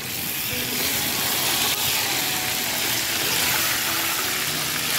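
Battered croaker fish deep-frying in a pot of hot oil: a steady sizzling and bubbling.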